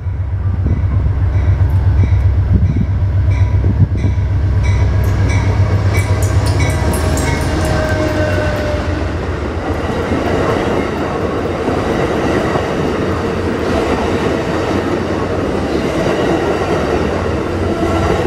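Amtrak passenger train passing at speed. For the first several seconds the P42DC diesel locomotive's low engine drone dominates, with a quick, even run of wheel clicks over rail joints. After that comes the steady rushing rumble of bilevel Superliner cars rolling by.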